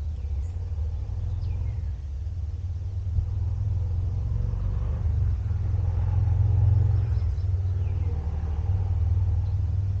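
A steady low rumble that swells to its loudest about two-thirds of the way through, with a few faint high chirps above it.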